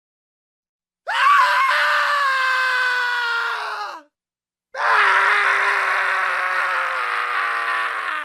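A man screaming twice: the first long scream starts about a second in and lasts some three seconds, sliding down in pitch as it dies away; after a short silence a second, lower scream is held for about three and a half seconds.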